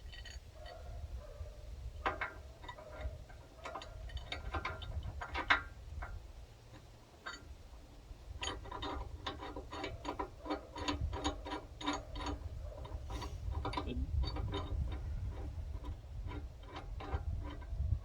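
Hand ratchet clicking as a fastener is turned, in runs of about four clicks a second, with irregular metal clicks and one sharp clack about five seconds in.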